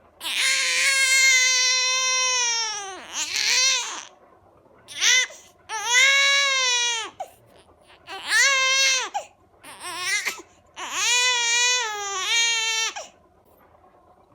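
Baby crying: a series of loud, high-pitched wails, the first and the last long, several dropping in pitch at the end, with short catches of breath between them.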